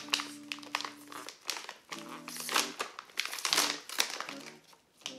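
A bag of protein coffee powder crinkling in several short bursts as it is handled, over background music with held notes.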